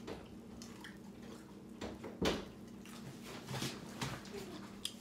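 Eating at a table: scattered clicks and clinks of cutlery on plates and chewing, with one louder knock a little over two seconds in, over a steady low hum.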